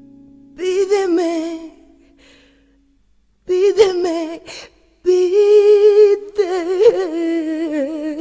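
Closing passage of a pop song: a woman hums a wordless melody with vibrato in three phrases, after a held guitar chord dies away at the start.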